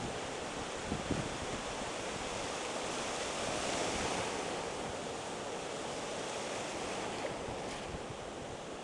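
Ocean surf breaking on the beach: a steady rushing wash of waves and whitewater, swelling louder about three to four seconds in as a wave breaks.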